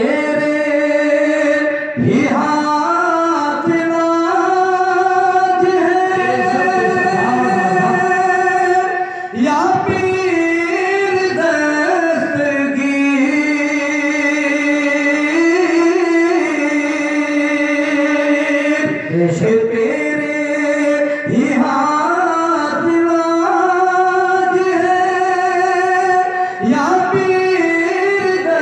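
A man singing a naat, an Urdu devotional song, drawing out long held notes with slow bends in pitch. He breaks off briefly a few times between phrases.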